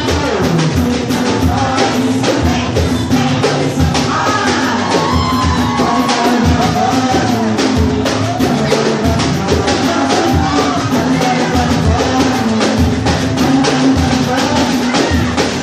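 Live batucada: a samba percussion ensemble drumming a dense, steady rhythm, with voices singing over it.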